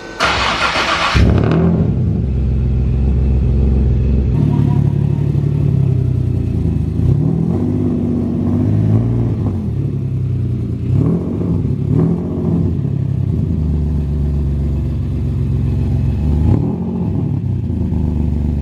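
Turbocharged Nissan 370Z's 3.7-litre V6 firing up with a brief loud burst, then idling out of its single exhaust tip. The revs are blipped up and back down several times.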